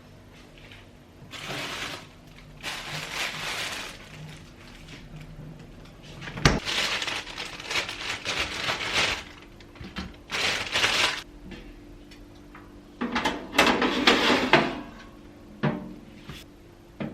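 Indoor handling noises: a string of short rustling and scraping bursts, with one sharp knock about six and a half seconds in.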